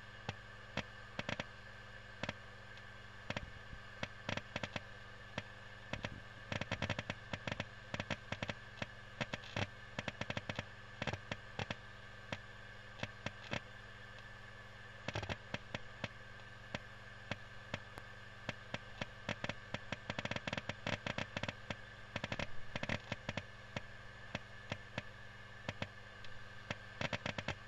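A LaCie 500 GB 3.5-inch external hard disk copying a large batch of data: its heads seek in irregular sharp clicks, some single, some in dense crackling runs like firecrackers. Under the clicks is a steady hum with a faint high tone.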